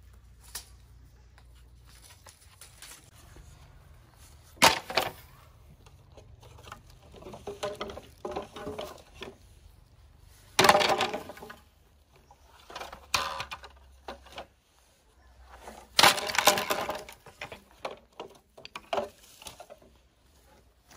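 Wood breaking and splintering: four sharp cracks, each trailing off into about a second of crackling, with lighter knocks in between.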